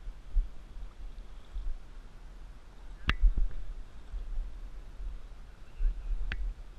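Low rumble of wind on the camera microphone, with two sharp clicks of fishing tackle being handled, about three and six seconds in.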